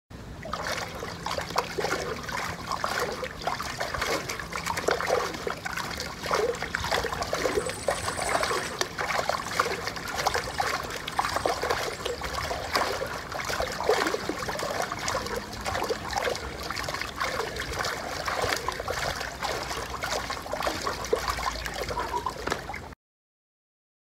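Pool water sloshing and splashing around a person's legs as she exercises in an inflatable pool, in a continuous run of surges. It cuts off suddenly near the end.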